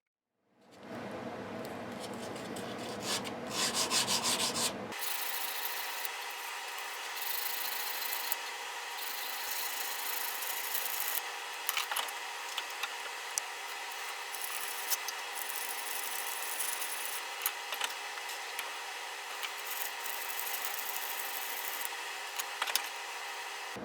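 Plane iron being sharpened by hand, rubbed back and forth on a sharpening surface: a steady scraping with scattered small ticks, louder strokes a few seconds in, and an abrupt change in the sound about five seconds in.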